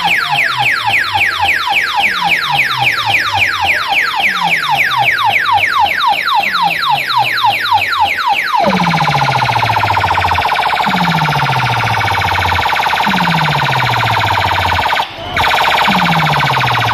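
Electronic DJ effects track played very loud through a large outdoor sound system. For the first half, rapid falling zaps repeat about four to five times a second over deep bass drops that slide down about once a second. About halfway the zaps give way to a steady siren-like tone over the same bass drops, with a brief cut-out near the end.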